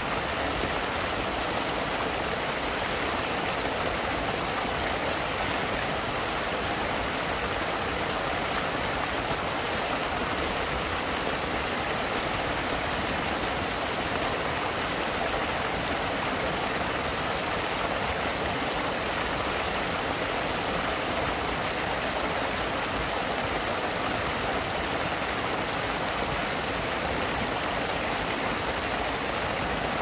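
Small natural waterfall: water pouring and splashing in a steady, unbroken rush.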